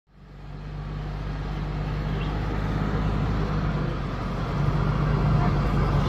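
Fire truck engine running steadily with a low hum, fading in over the first half second and growing a little louder about three quarters of the way through.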